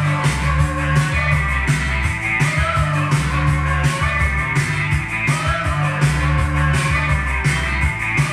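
Rock music with guitar, bass and a steady drum beat, played from a vinyl LP on a Sanyo TP 1020 direct-drive turntable with an Audio-Technica AT-VM95C cartridge and heard through the hi-fi's loudspeakers.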